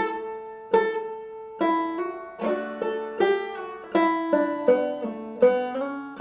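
A five-string banjo played clawhammer style: the A part of a fiddle-style tune, picked note by note with hammer-ons, pull-offs and drop-thumb notes, each note struck sharply and ringing briefly.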